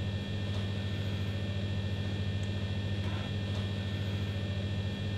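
Steady low electrical hum with an even hiss, unchanging throughout.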